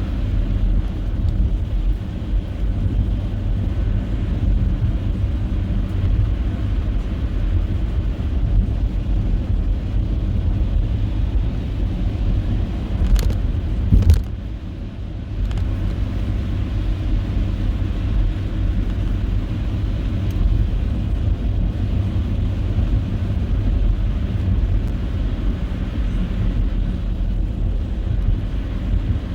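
Car driving on a snowy road, a steady low rumble of engine and tyres. Two sharp knocks come a little before halfway, and the rumble drops briefly after them.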